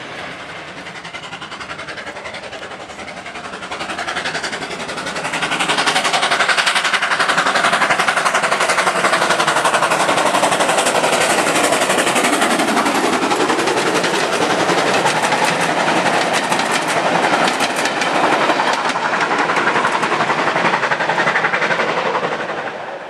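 Steam locomotive hauling a train of coaches passing close by at speed: a loud, fast rattle of exhaust beats and wheel clatter that swells about five seconds in and falls away just before the end. A quieter rumble of a receding train comes first.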